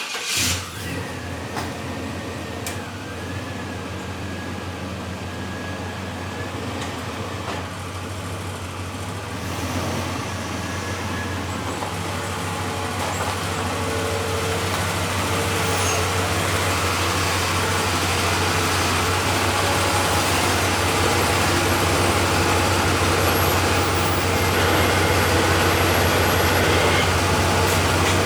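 A vehicle engine running steadily with a low hum, slowly growing louder through the second half.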